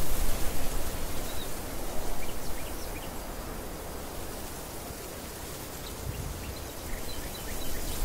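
Wind gusting against the microphone with a low rumble, stronger in the first few seconds and rising again near the end, over a steady outdoor hiss. Faint short bird chirps come through now and then.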